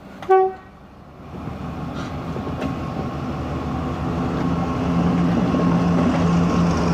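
Diesel-electric locomotive of the TCDD DE 36000 class gives one short horn toot, then its engine throttles up and grows steadily louder as it moves off while shunting.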